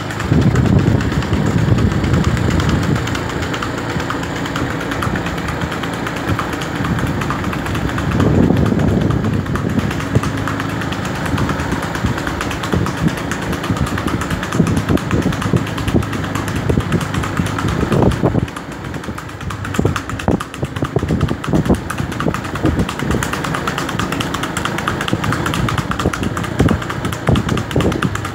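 Motor vehicle engine running steadily at low road speed, together with the irregular hoofbeats of a horse cantering on asphalt close behind it.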